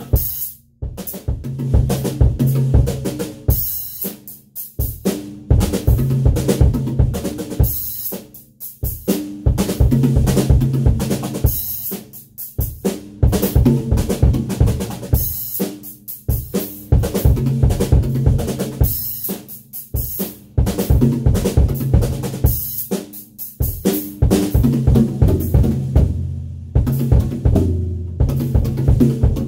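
DW acoustic drum kit played by hand: fast snare, tom and bass drum strokes under cymbal wash, practising triplet figures in 4/4 time. The playing comes in phrases with brief breaks about every four seconds.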